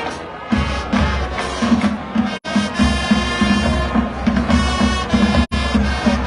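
High school marching band playing: brass over a steady drum beat. The sound cuts out briefly twice.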